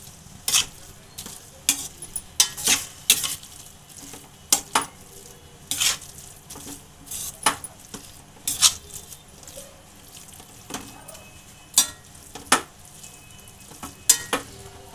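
Metal spatula scraping and knocking against a stainless-steel kadhai at uneven intervals as grated bottle gourd is stirred, over a faint sizzle of the gourd frying in ghee while its water cooks off.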